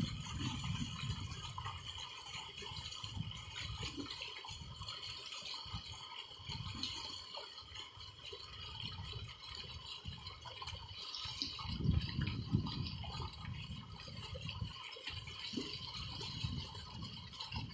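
Heavy stream of water gushing from a tube-well pipe and splashing into a concrete tank, with a radish being rinsed in the flow. A steady hum runs underneath.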